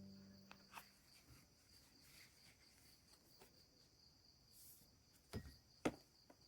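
Near silence with a faint steady high-pitched hum and a few soft clicks, the two loudest near the end.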